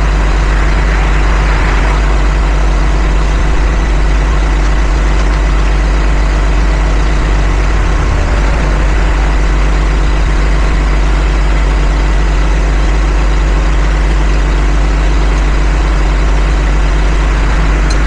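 Engine idling steadily: an even, unbroken low hum.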